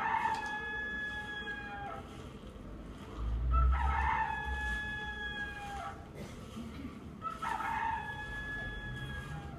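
Rooster crowing three times, each crow about two seconds long and falling slightly in pitch at the end, with a low thump a little after the first crow.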